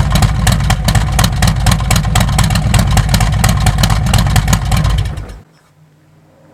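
Harley-Davidson Milwaukee-Eight V-twin with an S&S 465 cam running at idle through SVT Jackhammer slip-on mufflers: a loud, aggressive, rapid pulsing exhaust note. It cuts off suddenly about five seconds in.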